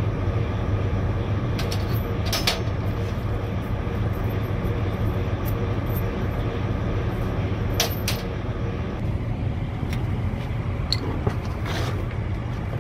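Steady low hum of an idling engine. Short light metal clinks of tools or parts being handled come a few times, loudest about two and a half seconds in and again near eight seconds.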